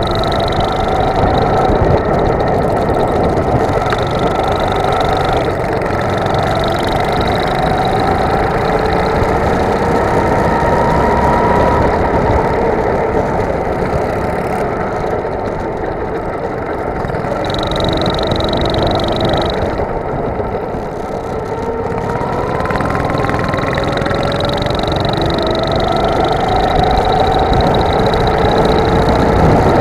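Go-kart engine heard from onboard at racing speed, its pitch climbing slowly for several seconds as it accelerates, then dropping as it slows for corners, twice over.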